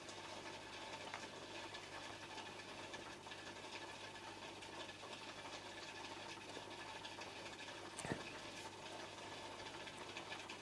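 Faint, steady hum and bubbling of a home aquarium's water pump and aeration, with one small click about eight seconds in.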